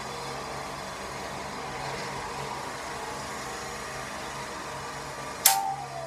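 Steady construction noise from a hydraulic jackhammer, with a low engine hum beneath it. About five and a half seconds in, a singing saw is struck with a sharp crack, the loudest sound, and its note rings on and slides slowly downward.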